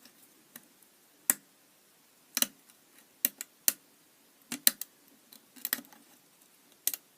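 Lever-lock picking tools clicking against and inside a Pheasant two-lever padlock: irregular sharp metallic clicks, some in quick pairs, as the tensioner and wire pick are worked in the keyway.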